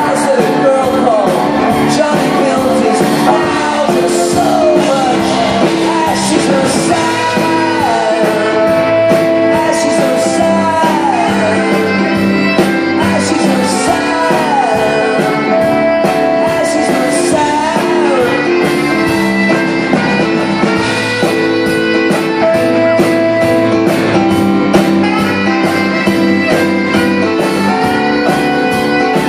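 Live rock band playing with fiddle, drums, guitars and keyboards; a lead melody slides up and down between long held notes over the band.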